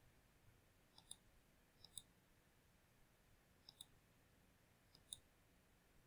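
Computer mouse clicking: four faint pairs of quick clicks, each a button press and release, spread about a second or two apart.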